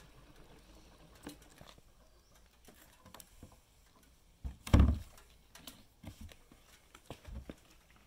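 A red plastic gas can being handled after refuelling: faint scrapes and small knocks, with one heavy thump near the middle.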